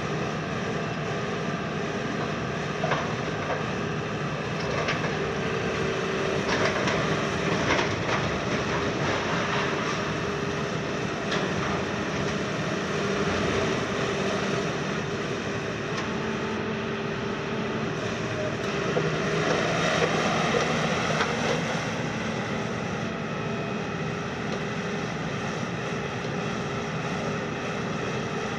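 KMC 380 S long-front demolition excavator on a Hitachi base (42 t, 210 kW) running under load, its diesel engine and hydraulics humming in tones that shift as the boom and tool move. Scattered sharp cracks and crunches of demolition debris break in, with a louder spell about two-thirds of the way in.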